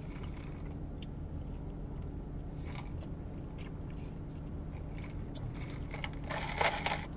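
A few short sips through a straw from a plastic cup of iced coffee, with faint clicks and rustles, over a steady low hum in a car's cabin.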